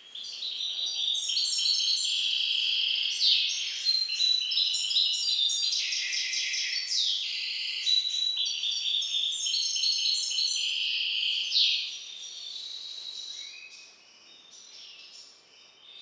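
Goldfinch × canary hybrid (a mule) singing a long, fast song of trills and repeated high notes for about twelve seconds, then softer, scattered notes near the end.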